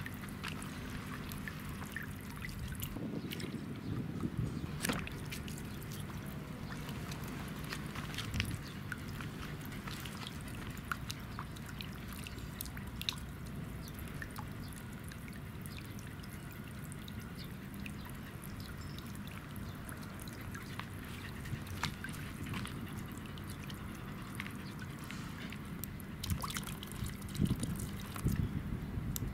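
Mini solar-powered floating fountain spraying a thin jet of water that patters back into a water-filled plastic tub, a steady trickle with scattered drips. Near the end a hand splashes in the tub water.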